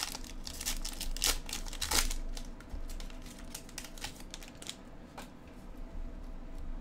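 A trading card pack wrapper being torn and crinkled open, with dense crackling in the first two seconds, then sparser rustles and clicks as the cards are slid out of the wrapper.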